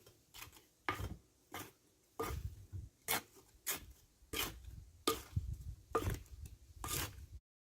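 Irregular knocks and scrapes of pots and potting tools being handled during repotting, about a dozen short strokes. The sound cuts off abruptly shortly before the end.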